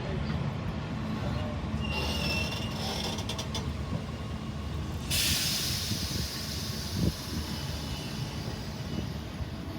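Passenger train with a steady low rumble, a short high squeal about two seconds in, and a sudden burst of air hiss about five seconds in that fades over a second or two.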